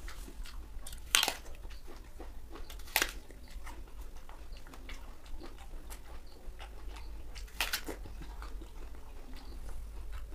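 A crisp apple being bitten and chewed: three sharp crunching bites, about a second in, about three seconds in and near eight seconds, with fainter chewing crunches in between.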